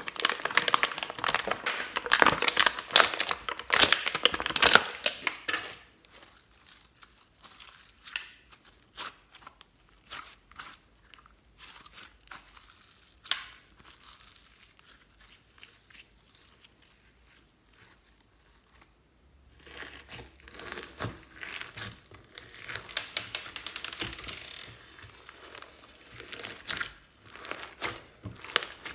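Slime being peeled and squeezed by hand, making dense sticky crackling and popping. The crackle thins to faint, scattered clicks through the middle, then comes back dense near the end as the slime is pressed down.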